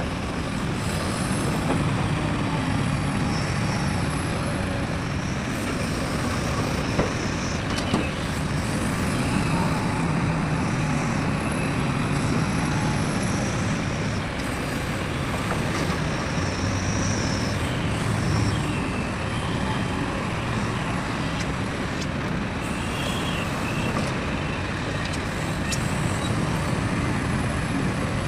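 Heavy diesel machinery of an excavator loading a dump truck running steadily, with a couple of short knocks about seven and eight seconds in.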